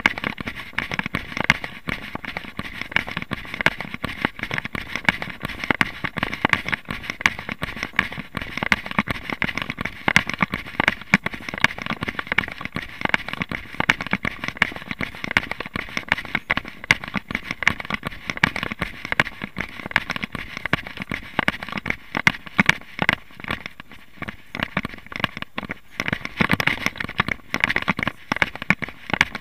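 Continuous crackling rustle and knocks from a camera worn by a running person, jostling with each stride, with footfalls on a dirt and grass path.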